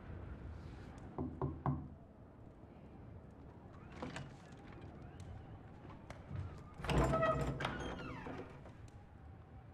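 Three knocks on a heavy wooden door about a second in, then some seconds later the door is unlatched and pulled open with a cluster of clicks and rattles.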